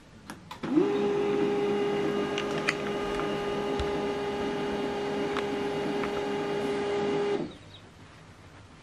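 HP LaserJet MFP M140w laser printer powering up: a couple of clicks from its power button, then its motor winds up quickly into a steady whine that runs for about seven seconds and stops suddenly, the printer's start-up cycle after being switched on.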